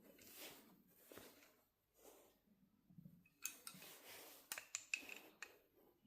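Faint clicks and light knocks of steel balisong (butterfly) knives being handled, with a cluster of sharper clicks in the second half.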